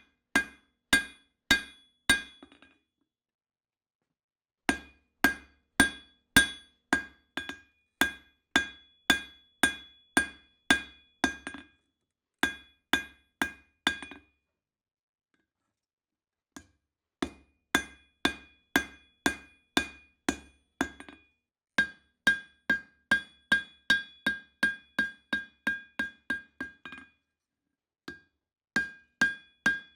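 Hand hammer blows forging steel on an anvil, each strike ringing with a clear metallic tone. The blows come in runs at about two a second, quickening to about three a second, broken by short pauses of a couple of seconds.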